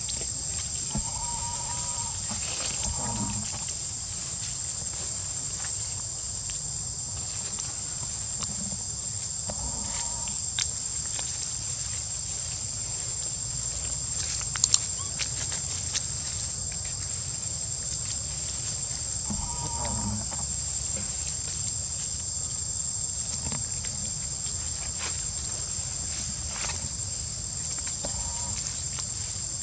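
Steady high-pitched drone of insects, with a low rumble beneath and a few short calls now and then. A sharp click about halfway through.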